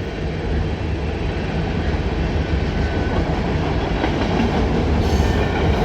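A Norfolk Southern mixed freight train's cars rolling past, with the wheels on the rails making a steady rumble.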